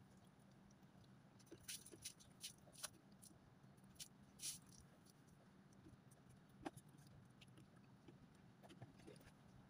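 Near silence with a few faint clicks and scrapes, and a short splash about four and a half seconds in as water is tipped from a bucket onto the wet tiled floor.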